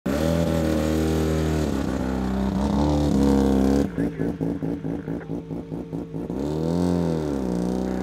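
1970 Mazda RX2 rally car's rotary engine running with small blips of the throttle. After a cut about four seconds in, it idles in a choppy pulse about five times a second, then revs up and back down as the car pulls away.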